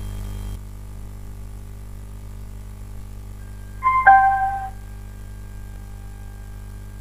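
A Bluetooth amplifier module's pairing chime through its speakers: a quick electronic tone of a few notes about four seconds in, the last note held for about half a second, over a steady faint hum from the amplifier.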